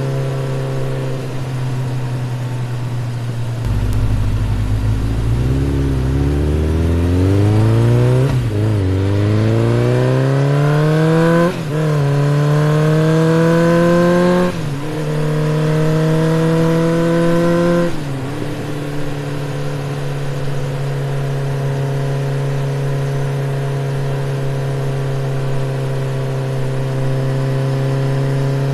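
Honda CB150X single-cylinder motorcycle engine holding a steady speed, then accelerating from about four seconds in. Its pitch climbs through the gears, with four upshifts each heard as a sudden drop in pitch, before it settles back to a steady cruise.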